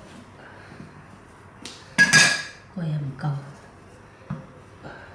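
Steel cleaver blade clanking against the work surface as it is pressed flat on wrapper dough and lifted: light taps, and one loud metallic clank with a short ring about two seconds in.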